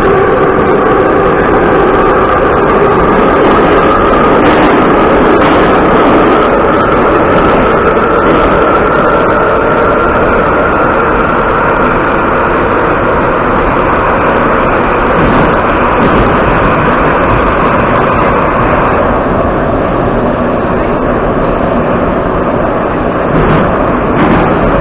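Interior running noise of an Ezh3 metro train, a loud steady roar with a motor whine that rises slowly in pitch over the first half as the train picks up speed, then holds steady.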